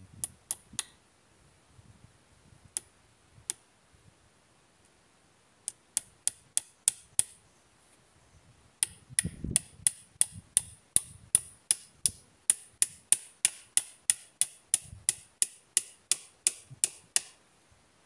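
Small hatchet striking a wooden pole: a few scattered sharp knocks, then a steady run of blows about three a second from about nine seconds in.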